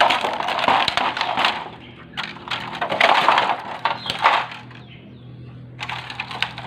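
Handling noise: crackling and crinkling in three bursts with short pauses between, over a faint steady low hum.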